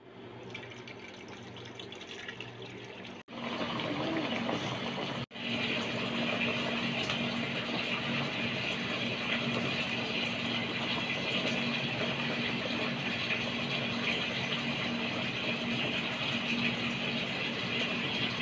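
Pot of goat-feet sinigang broth at a vigorous boil: a steady bubbling, hissing water sound with a faint low hum beneath. The sound cuts out sharply twice in the first few seconds.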